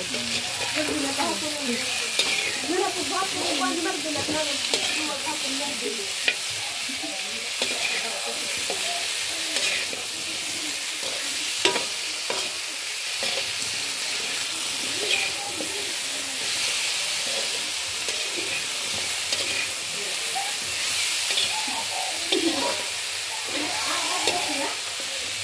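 Chopped squash and taro pieces sizzling in oil in a metal wok while a spatula stirs them, with the steady hiss of frying broken by scattered sharp clicks and scrapes of the spatula against the pan.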